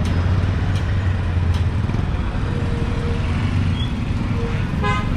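Steady low rumble of road traffic, with a few light clicks in the first second and a half and a brief pitched beep near the end.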